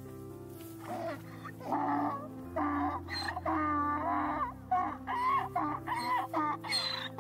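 Deer giving a series of high, wavering squealing calls, one after another, from about a second in to near the end, over background music with steady held notes.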